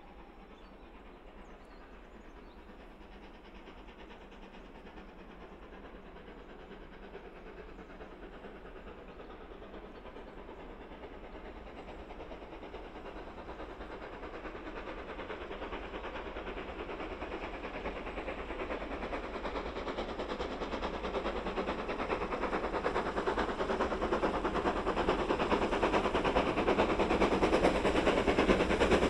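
GWR steam locomotive working hard under load, its rapid exhaust chuffs growing steadily louder as it approaches and draws close.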